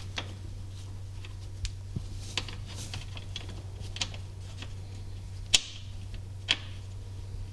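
Scattered, irregular clicks and taps of bolts and hardware being handled and fitted at a golf cart's rear leaf spring shackle mount, over a steady low hum. The sharpest click comes about five and a half seconds in.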